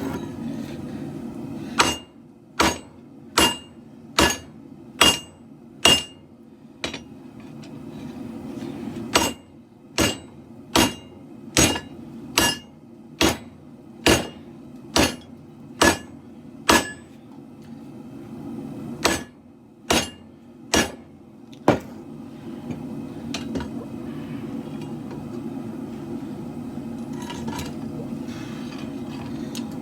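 Hand hammer striking steel on an anvil, forging a katana blade: about twenty ringing blows, roughly one every second, in three runs with short pauses, stopping about 22 seconds in. A propane forge's burners run steadily underneath and carry on alone after the hammering stops.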